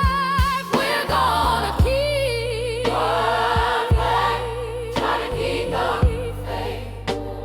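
Gospel-style song: a choir and a solo voice hold long wordless notes with vibrato over a sustained bass line and drum hits.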